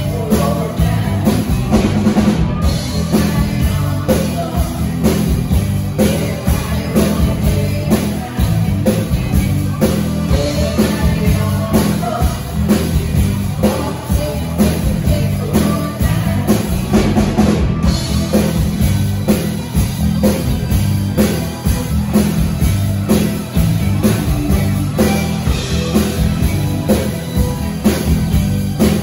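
Live band playing with a steady drum-kit beat and heavy bass, electric guitar and keyboards, with female vocalists singing over it.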